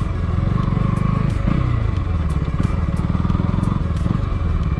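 KTM Duke 200's single-cylinder engine running as the motorcycle rolls at low speed, its revs dropping about a second and a half in.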